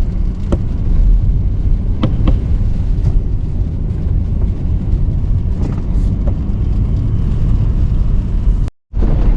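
Pickup truck driving over snow, heard from inside the cab: a steady low engine and road rumble with a few sharp clicks. The sound cuts out for a moment near the end.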